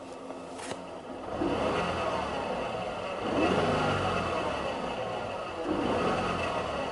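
Toyota 86 / Subaru BRZ engine running with the revs rising and falling about three times, over an abnormal noise from the clutch: the release bearing is damaged.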